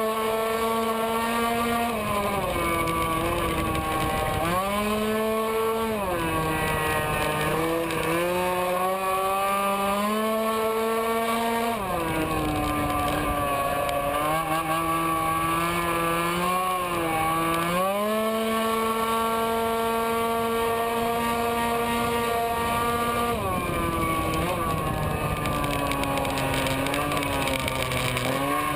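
Tuned racing scooter engine at high revs, ridden hard around a track: it holds a steady high pitch on the straights, drops in pitch when backing off for corners, about five times, and climbs back up as it accelerates out.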